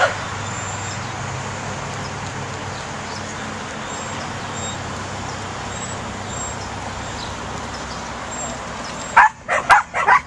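Pembroke Welsh Corgi puppy barking: one short bark at the start, then a quick run of four or five sharp yapping barks about nine seconds in, over a steady background hiss.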